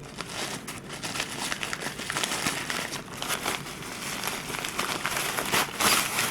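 Packaging being crinkled and rustled by hand as a tripod is unpacked, a steady run of crackly rustling with many small clicks that grows louder near the end.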